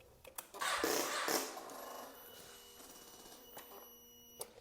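The electric starter of a 2003 Kawasaki ZX6R 636 being tried: a short rough burst, then a thin steady ringing buzz that cuts off abruptly near the end. The engine does not start.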